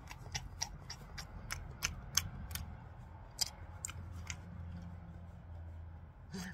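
A person chewing meat close to the microphone: a run of irregular sharp, wet clicks and smacks, a few a second, which stop after about four seconds.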